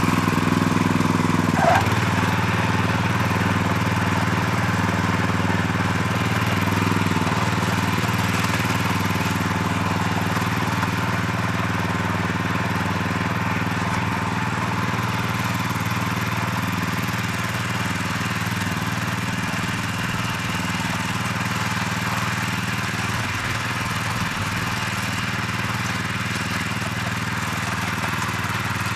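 Small engine of a walk-behind garden cultivator (mini tiller) running steadily as its tines churn through soil, growing slightly quieter as it moves away.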